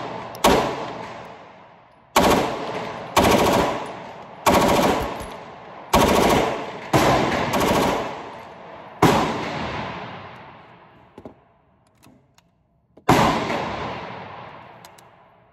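H&K MP5K 9mm submachine gun firing a string of short bursts, each followed by a long echo off the walls of an indoor range, with a pause of a few seconds before the last burst near the end.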